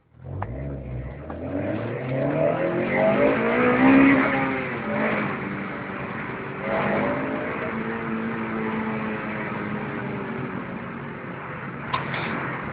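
Honda Civic Type R FN2's 2.0-litre i-VTEC four-cylinder on the stock exhaust, coming in suddenly and climbing in pitch for about four seconds, dropping, then rising again and holding a steadier note.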